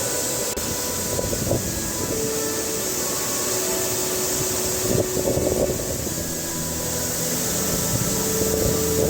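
Steady rushing roar of a waterfall pouring down a rock face.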